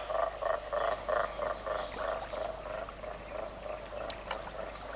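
Frogs croaking in a swamp: a rapid pulsing call of about six beats a second that fades away over the first few seconds, with a few faint high chirps near the end.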